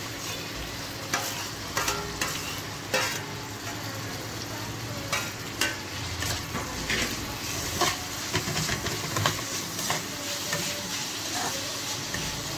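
Sliced onions and freshly added chopped tomatoes sizzling in oil in a non-stick kadai, stirred with a metal spatula that clicks and scrapes against the pan again and again over a steady frying hiss. At the start the tomatoes are scraped off a steel plate into the pan.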